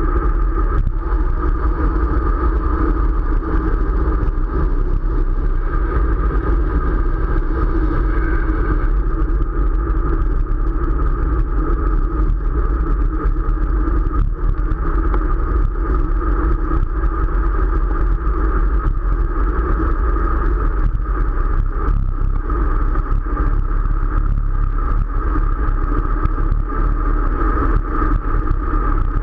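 Steady rush of wind over the microphone of a camera carried on a moving bicycle, heaviest in the low rumble.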